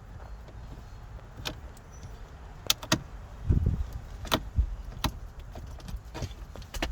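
Sharp clicks and knocks of car interior parts being handled and fitted while the gear shifter and console are put back together, with a dull thump about three and a half seconds in, over a low steady hum.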